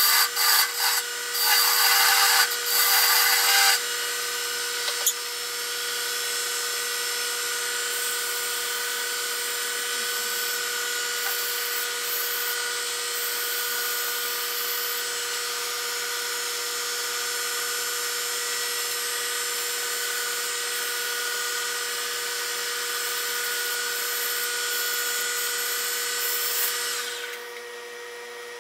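Wood lathe running with steady tones. In the first few seconds a hand tool cuts into the spinning cherry wood in loud, scraping bursts. After that the lathe runs steadily while sandpaper is held to the turning piece, and the motor is switched off and goes quiet near the end.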